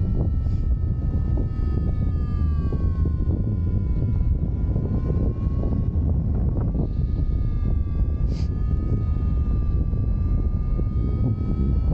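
Strong wind buffeting a paragliding pilot's microphone in flight, a loud steady rumble. Above it a thin steady tone sags a little in pitch a few seconds in and rises again, with a short hiss about eight seconds in.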